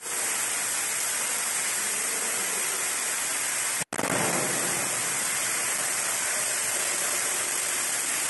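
Heavy rainwater pouring down a stairwell wall and steps, a steady hiss of falling water. It cuts out for an instant just before four seconds in.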